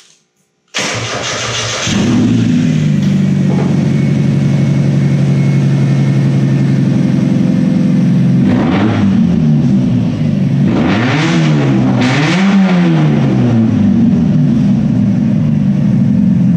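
Mazda Miata's four-cylinder engine cranking briefly and catching, then idling steadily. About halfway through, a few throttle blips rise and fall before it settles back to idle. The engine starts and runs with every cabin fuse, relay and plug unplugged.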